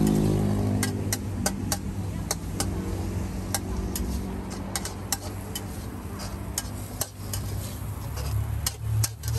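Metal spatula clinking and scraping against a wok during stir-frying, in irregular sharp clicks over a steady low rumble.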